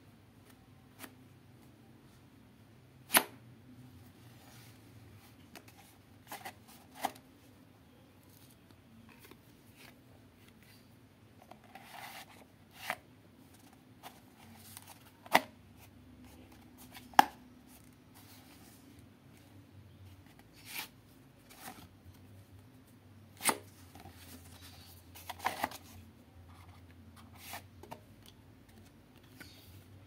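Handling noise from a homemade EVA-foam and cardboard toy prop as a trading card is pushed into it and slid about. Scattered sharp clicks and taps, the loudest about two-thirds of the way through, between soft rustles and scrapes.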